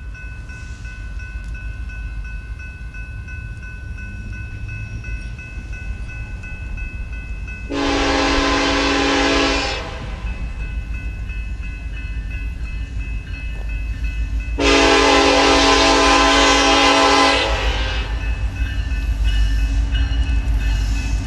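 Multi-chime horn of an approaching BNSF EMD SD70ACe diesel freight locomotive, sounding two long blasts of about two and three seconds, with a third starting at the very end. Beneath them is the low rumble of the locomotives' diesel engines, growing louder as the train nears.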